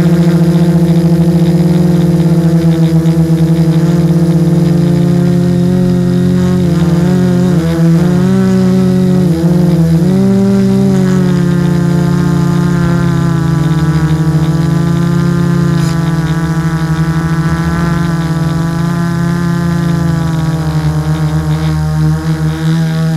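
Hexacopter's six LD-Power MT3110 brushless motors and 10-inch propellers humming steadily. Their pitches wobble and cross between about six and eleven seconds in as the motor speeds change, then settle again.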